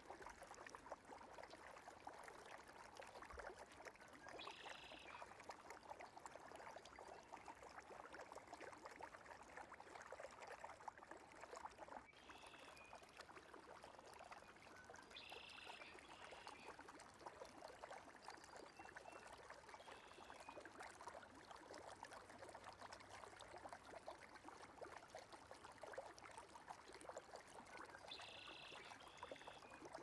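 Faint, steady rush of a shallow mountain creek running over stones, with a bird giving short high calls a few times.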